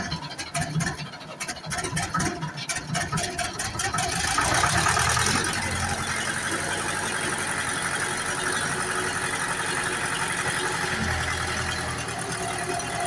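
Hymac 370C backhoe loader's diesel engine running just after a cold start, uneven and knocking at first, louder for a moment about four seconds in, then settling to a steady idle.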